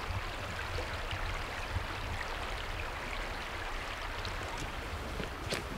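Creek water running steadily, with a low rumble underneath and a light click near the end.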